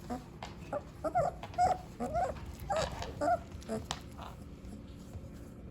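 Seventeen-day-old Shepsky puppies whimpering: a quick run of short, high cries that bend in pitch, thickest in the first few seconds and dying away after about four seconds.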